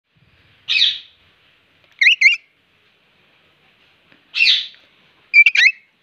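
Parakeet calling: a harsh screech, then a quick pair of shrill gliding notes, the whole phrase given twice.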